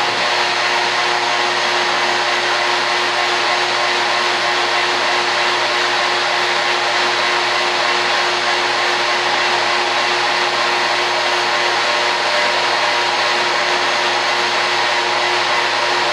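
Shop vacuum running steadily, a constant rush of air with a steady motor hum.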